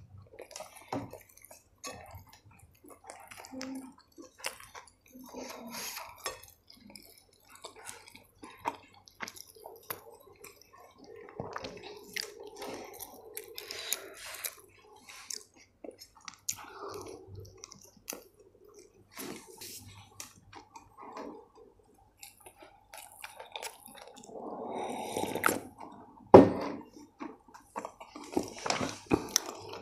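Close-up chewing and mouth sounds of someone eating paratha, with fingers tearing the bread and picking at a glass plate in irregular soft clicks and scrapes. One sharp knock near the end is the loudest sound.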